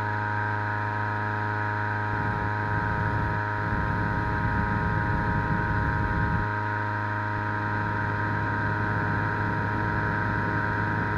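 Petrol-engine inflator fan running steadily at full speed, blowing cold air into a hot-air balloon envelope. A low rumble joins it for a few seconds in the middle.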